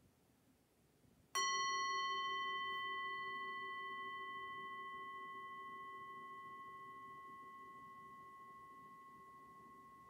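A handheld metal singing bowl struck once with a wooden mallet about a second in, then ringing with several steady tones that slowly fade, with a slight wavering in the ring. It is sounded as a mindfulness bell, the cue to listen.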